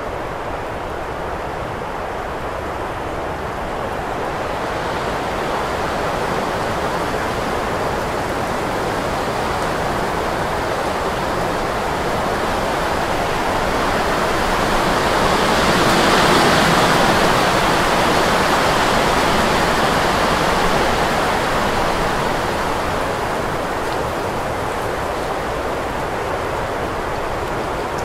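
Wind blowing as a steady rush. It swells gradually to a strong gust at its loudest about halfway through, then eases back down.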